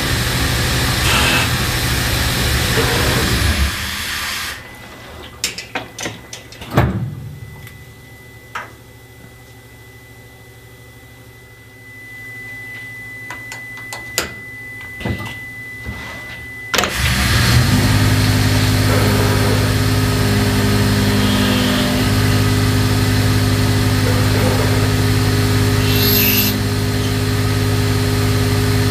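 OmniTurn GT-75 CNC lathe running with its spindle turning and flood coolant spraying. About four seconds in, the spindle and coolant stop. In the quieter stretch there is a faint steady high tone and a few sharp clicks and knocks as a part is handled at the collet by hand. About seventeen seconds in, the spindle and coolant start up again and the lathe runs on steadily.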